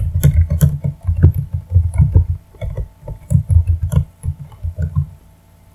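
Computer keyboard typing: a fast, irregular run of dull keystrokes that stops about five seconds in.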